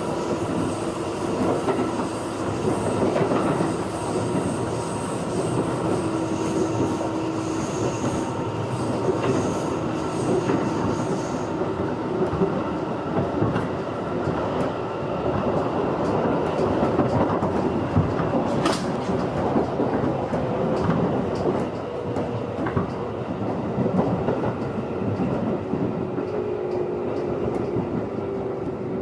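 Running sound of a JR 211 series electric multiple unit heard from inside the car: a steady rumble of wheels on rail with a steady hum, and repeated faint clicks of rail joints. One sharper click comes a little past halfway.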